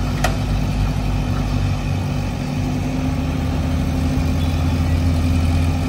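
Heavy diesel engines of a hydra mobile crane and a JCB backhoe loader running under load while lifting an overturned truck. The engine drone grows louder about three and a half seconds in. There is a brief sharp click just after the start.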